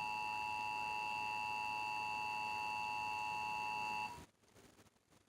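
Emergency Alert System attention signal, the steady two-tone alert tone that follows the SAME data headers and announces the alert message. It cuts off abruptly about four seconds in.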